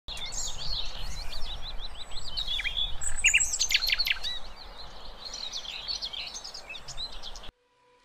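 Songbirds singing: rapid, overlapping chirps and whistled notes over a low background rumble. The sound cuts off suddenly near the end.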